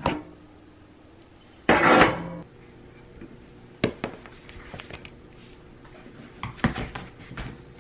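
Handling noises on a hard desk: a loud clatter about two seconds in, then a few sharp taps and knocks as objects are moved and set down beside a laptop, over a faint steady hum.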